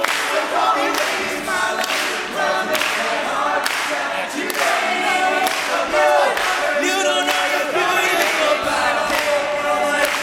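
All-male a cappella group singing in close harmony, voices only, over a steady percussive beat.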